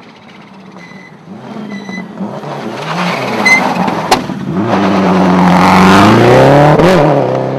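Rally car approaching and going by hard on a stage, its engine revs climbing as it draws near, with a brief lift near the end before it fades away. Two sharp cracks sound about halfway through.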